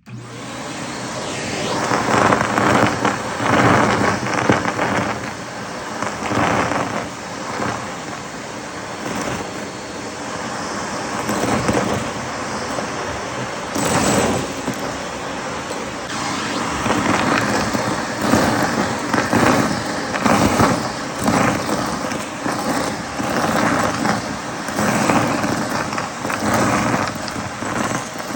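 Vacuum cleaner running continuously, its steady motor hum under a rushing air noise that keeps swelling and easing every second or so.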